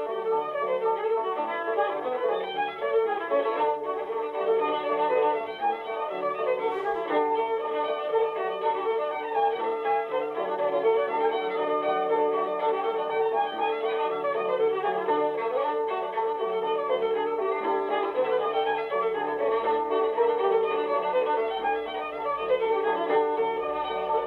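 Fiddle music: a tune played on the fiddle that runs without a break.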